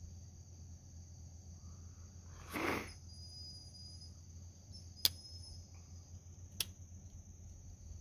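A steady high insect chorus, with two sharp clicks about a second and a half apart near the middle, a slip-joint pocketknife's blades snapping on the backspring as they are worked. A brief soft rustle comes a little earlier.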